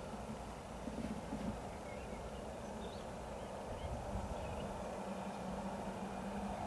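Steady low hum with an even rumbling noise, growing a little stronger in the second half, while a few small birds chirp briefly.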